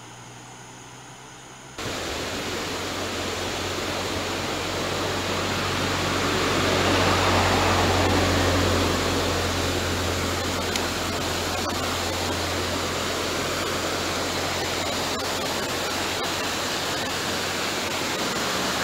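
Water pouring over a low concrete spillway weir and rushing down the channel below, a steady rush. It is fainter for the first two seconds, then suddenly much louder, swelling a little near the middle.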